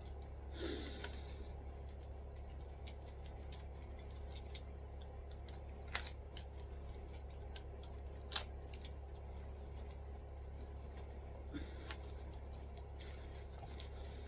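Quiet handling of a small object: a brief rustle about a second in, then two short sharp clicks about six and eight seconds in, over a steady low hum.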